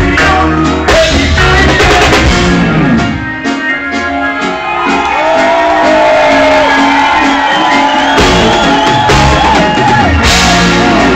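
Live reggae band playing loudly through a PA, with shouted and sung vocals. The bass drops out for a few seconds while long held notes carry on over the top, then comes back in near the end.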